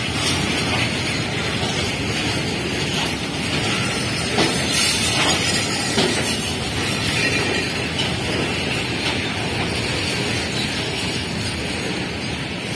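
Freight train of BTPN petroleum tank wagons rolling past on steel rails: a steady rumble of the wagons' wheels and running gear, with an occasional knock about four and six seconds in.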